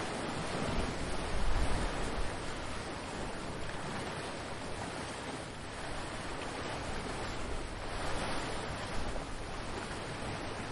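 Ocean surf: waves breaking and washing ashore as a steady hiss that swells and ebbs, loudest about a second and a half in with a low rumble.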